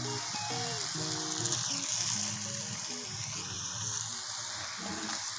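Onion, tomato and spice masala sizzling in ghee in a steel pan, with steady background music playing over it.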